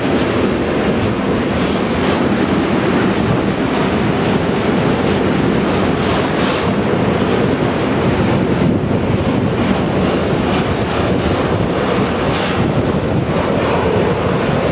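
Freight train of tank wagons rolling past, a steady rumble of wheels on rail with faint wheel clicks.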